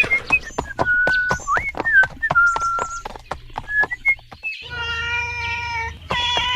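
Kittens mewing: a run of short high calls, some held flat and some sliding up, then a longer held mew near the end, with many sharp clicks among them.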